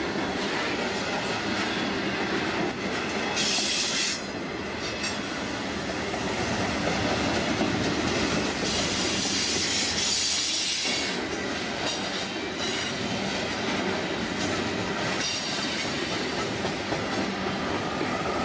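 Freight cars rolling past close by: a steady rumble and clatter of steel wheels on rail, with a high-pitched wheel squeal rising over it about three seconds in, again for a couple of seconds around nine to eleven seconds, and faintly near fifteen seconds.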